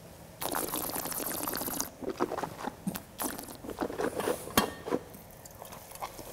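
A wine taster sipping white wine and slurping air through it in a hissing rush lasting about a second and a half, then swishing it around the mouth with irregular wet clicks and gurgles, the usual way of aerating wine to taste it.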